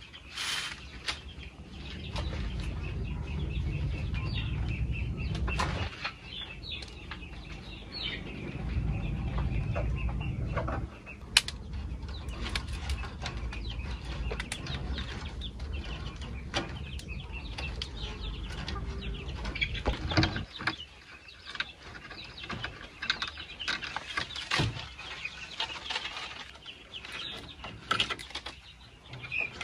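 Green plastic mesh netting rustling and flapping as it is pulled and hung over a slatted bamboo coop wall, with scattered clicks and scrapes from handling. A low rumble comes twice in the first ten seconds, each time for a few seconds.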